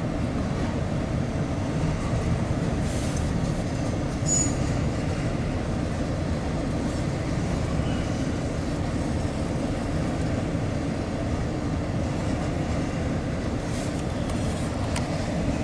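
Norfolk Southern intermodal freight train rolling past, a steady low rumble of wheels on rail, with brief high wheel squeals a few times.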